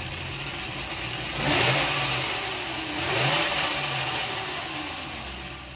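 A 48 V electric hub motor spins the Phatmoto's fat-tyred rear wheel off the ground under throttle, with the chain and knobby tyre whirring. Its whine rises twice, about one and a half seconds in and again near three seconds, then winds down. The owner reckons this free spinning is probably not good for the motor.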